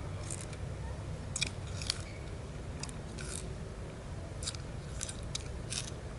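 A person chewing a small piece of raw sugarcane, the fibrous stalk crunching in short, irregular bites.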